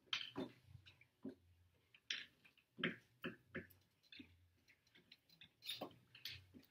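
Quiet classroom: scattered, irregular small taps and clicks from children writing and shifting at their desks, over a faint low hum.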